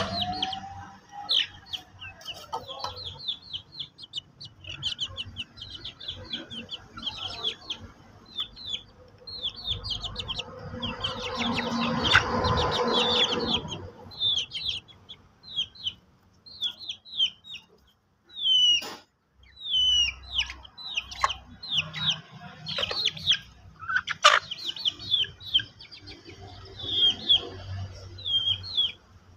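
Chickens peeping and clucking: a steady run of short, high, falling peeps, several a second, with a louder, longer call about twelve seconds in. Two sharp clicks come in the second half.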